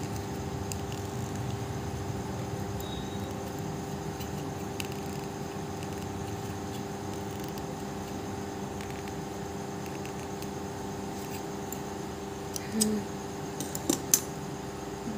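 Steady machine hum with several fixed tones, with a few light clicks and taps near the end.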